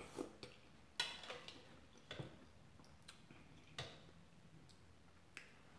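Close-miked eating of chicken noodle soup from a spoon: soft chewing with scattered sharp mouth clicks and smacks, about one every half second to a second, the loudest about a second in.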